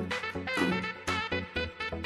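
Background music with a steady beat and bright melodic notes.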